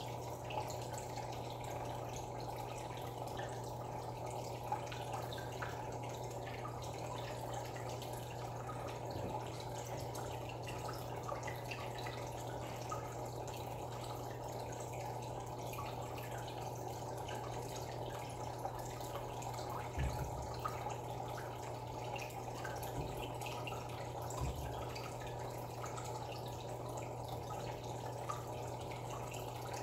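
Aquarium filter running: water trickling and dripping into the tank over a steady low electric hum, with two soft low bumps about two-thirds of the way through.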